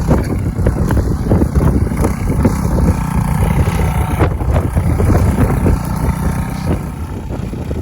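Earthquake Versa front-tine tiller's 99cc four-stroke Viper engine running while tilling, a steady, loud engine sound that eases slightly near the end.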